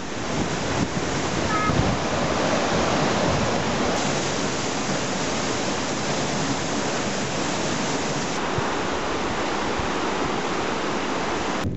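River in flood, its swollen brown water rushing and churning in white-water rapids: a steady, dense rush of water noise.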